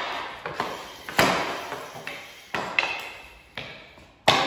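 Street-hockey shots: sticks striking a ball and the ball hitting the hockey net's metal frame. About six sharp knocks echo around a large room, and one of them gives a brief metallic ping.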